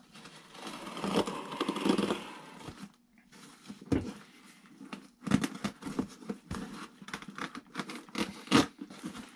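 Scissors cutting and scraping through packing tape on a cardboard box, with a tearing, scraping stretch about a second in, then a run of sharp clicks and knocks as the cardboard is worked open.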